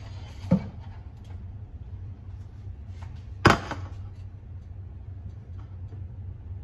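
Two sharp knocks over a steady low hum, the second and louder about three and a half seconds in: a stainless-steel saucepan knocking against a steel kitchen sink.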